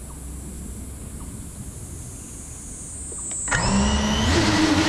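A racing FPV quadcopter's brushless motors spin up from standstill about three and a half seconds in, a sudden whining hum that steps up in pitch. Before that there is only a low hum and a faint high-pitched electronic whine.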